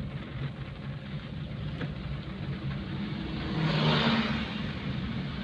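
A car engine running steadily, with a louder swell of noise that peaks about four seconds in and then eases off.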